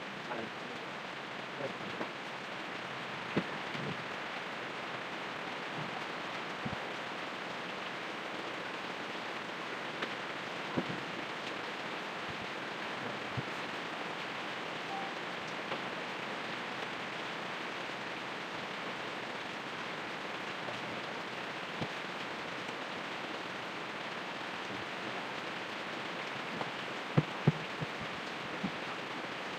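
Steady rain-like hiss with scattered sharp clicks and knocks, the loudest two close together near the end.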